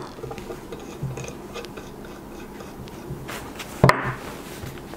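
Steel parts of a Savage 64F rifle being handled and fitted together: faint rubbing and small ticks, with one sharp metallic click just before four seconds in as the front action post and barrel are set in place.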